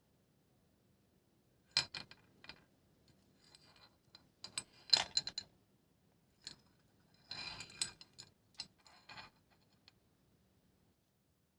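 A handmade necklace clicking and jingling as it is handled: scattered sharp clinks start about two seconds in, the loudest come around five seconds, and a denser rattle follows near eight seconds, stopping after about nine seconds.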